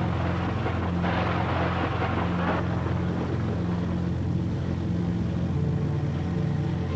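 A low, steady, ominous droning score. A burst of rushing noise lies over it for the first two and a half seconds, then cuts off.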